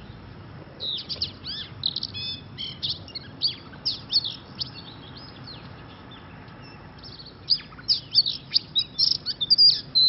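Oriental magpie-robin singing: quick runs of varied high whistles and chirps, in a burst from about a second in and a louder one from about seven and a half seconds in.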